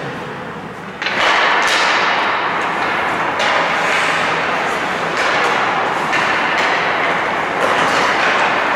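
Ice hockey play in an indoor rink: steady scraping noise from about a second in, with scattered knocks of sticks, puck and boards.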